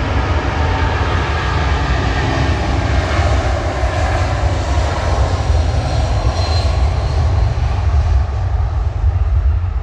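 Boeing 747's four jet engines at takeoff power during the takeoff roll: a loud, steady low rumble with a hissing jet noise that swells in the middle and eases off near the end as the aircraft moves away.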